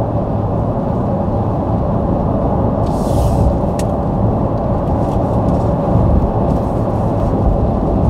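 Steady wind and tyre noise inside the cabin of a Mercedes EQC 400 electric SUV cruising at motorway speed with the windows up, with a brief hiss about three seconds in and a sharp click just after.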